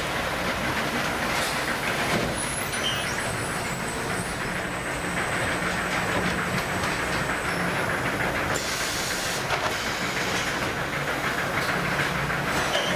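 Steady machinery noise with a low hum and a light clatter.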